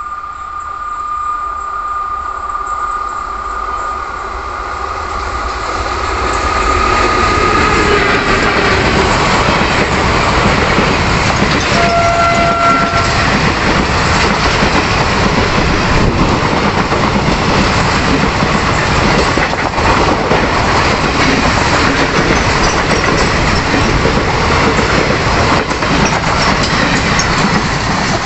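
A passenger express behind an electric locomotive approaches sounding a long horn blast, held for about eight seconds and rising slightly in pitch near its end. It then runs through at speed: a loud, steady rush with clickety-clack from its coaches' wheels, and a brief second horn note about twelve seconds in.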